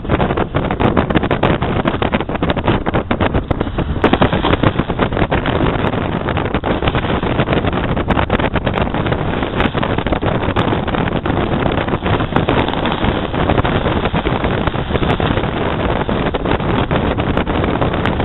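Wind buffeting the camera's microphone: a steady, loud rushing noise full of small crackles and pops.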